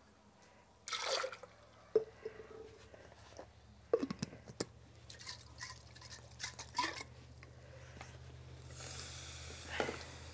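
Knocks and clinks of a blender jar being handled, then, about nine seconds in, a steady hiss as blended tomato sauce is poured into a clay cazuela of vegetables frying in hot oil and sizzles.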